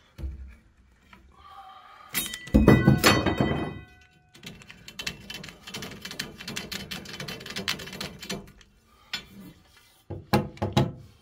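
Metal conduit clanks loudly and rings, then a few seconds of rapid, steady metal-on-metal scraping as the conduit's cut end is reamed out, then a few short knocks near the end.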